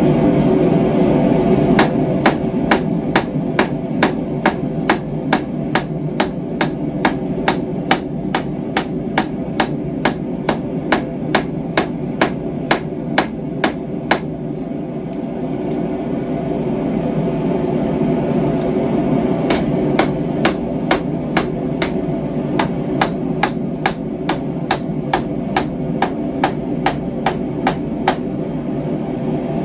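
Hammer blows on hot knife steel on an anvil, about three a second with a ringing note. They come in two runs with a pause of about five seconds between them, over a steady roar from the propane forge's burner.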